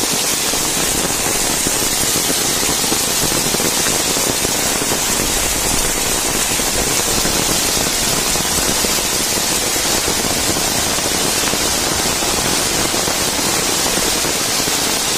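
Steady rush and splash of muddy rainwater cascading down a flight of stone steps.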